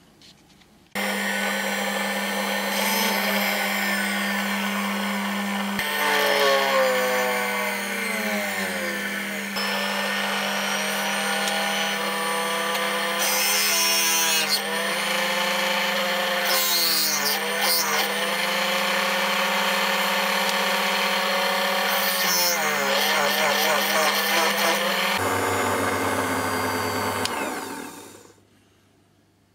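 Bench drill press starting up abruptly, its motor running with a steady hum while a small twist drill bit cuts into a small metal lighter part, with wavering squeals from the bit as it bites. The motor stops and spins down near the end.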